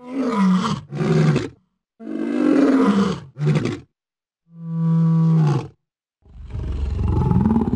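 Tiger-like roars and growls for a snarling tiger cub, six separate calls with short gaps between them. The last is a longer, pulsing growl.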